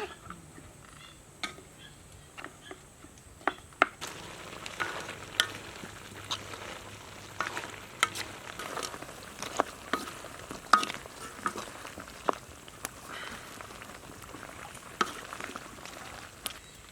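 Food frying in a hot pan. A few sharp clicks at first, then about four seconds in a steady sizzle starts, with frequent clicks of a utensil stirring against the pan.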